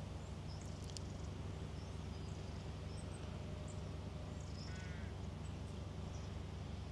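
Quiet riverbank ambience: a steady low rumble with faint, scattered high bird chirps, and a crow cawing once, briefly, about five seconds in.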